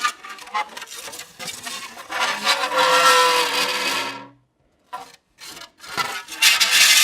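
Metal pressed against dry ice, screeching and squealing as the ice makes the metal vibrate, with several pitched tones that shift and slide. It stops just after four seconds in, comes back as a few short bursts, then swells into a louder stretch near the end.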